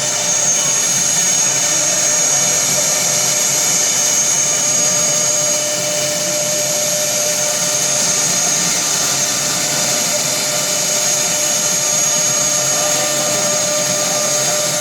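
CNC router running with a steady high-pitched whine over an even mechanical noise.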